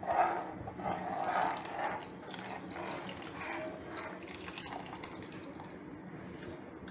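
Cornflour-and-water slurry being poured into a pot of simmering vegetable soup to thicken it. The pouring and splashing are loudest in the first two seconds, followed by a quieter, steady liquid sound with a few light clicks.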